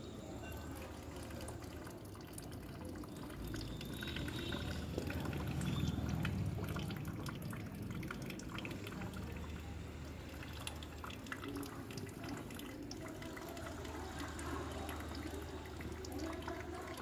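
Water from a jal neti nasal rinse pouring out of a nostril, dripping and splashing steadily, heavier for a few seconds in the middle.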